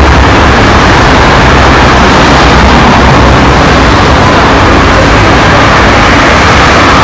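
City street traffic: cars and a motorbike driving past, a loud, steady rush of engine and tyre noise with a heavy low rumble.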